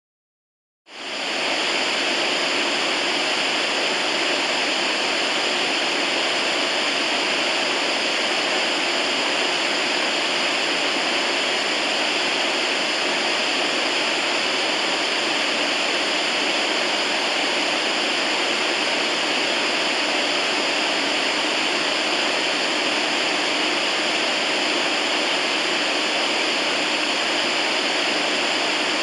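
FM radio static: an even hiss between stations that starts abruptly about a second in and holds steady, with a few faint high steady tones in it.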